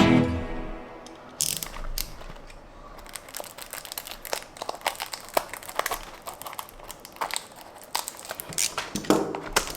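Crinkling and rustling of a Tomica die-cast toy car's packaging being opened by hand, with many scattered light clicks and taps.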